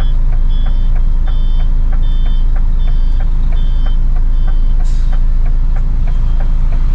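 A vehicle's electronic beeper sounds a short, high two-tone beep about three times a second over the steady low hum of a running engine. The beeping stops about two-thirds of the way in, and a brief hiss follows soon after.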